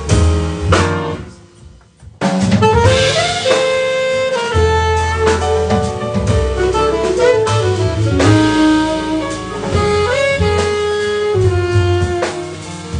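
Live jazz band playing: saxophone melody over double bass, drum kit, piano and electric guitar. About a second in the band drops out almost completely, then comes back in together a moment later, the saxophone carrying long held notes.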